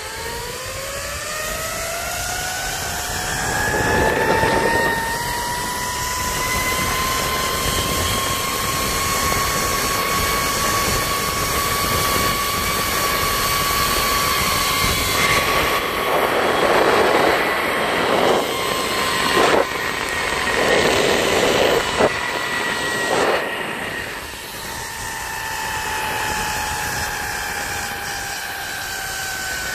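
Zip line trolley's pulley wheels running along the steel cable: a whine that climbs in pitch as the rider picks up speed, holds steady, then slowly drops over the last several seconds as the trolley slows. Several bursts of rushing noise come and go partway through.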